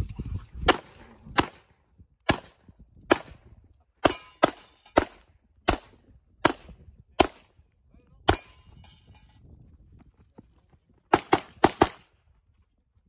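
A string of 9mm pistol shots fired during an IPSC stage: about fifteen shots, one every half second to second, then after a pause of nearly three seconds a fast burst of four.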